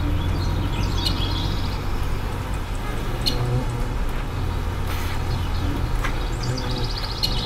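Old bus running with a steady low engine rumble heard from inside the passenger cabin, with a few light rattles. Brief bursts of high chirping come about a second in and again near the end.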